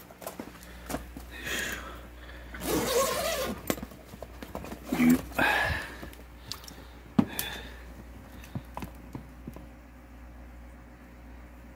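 Handling noises: a plastic bag lining a container of caught shrimp rustles in three louder bursts, about one, three and five seconds in, among scattered knocks and clicks, over a steady low hum.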